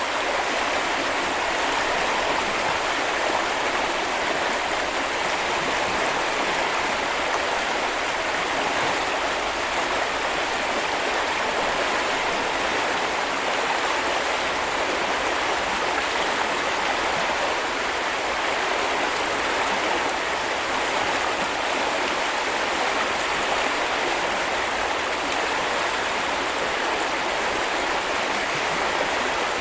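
Steady rushing and babbling of a shallow river stream flowing over stones.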